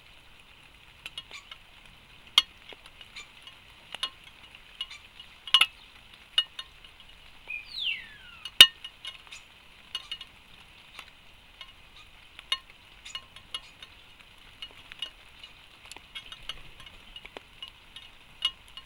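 Irregular sharp taps and clicks, typical of a crow-family bird pecking at seed on a wooden feeder tray, over a steady electronic hiss. A single short falling whistle comes about eight seconds in.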